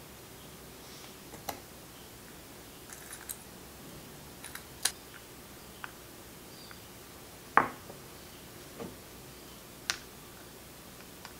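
Metal tweezers clicking and tapping as pistachio and cashew nuts are picked from a glass bowl and set into a silicone heart mould: scattered sharp clicks and soft taps, the loudest a fuller knock about seven and a half seconds in.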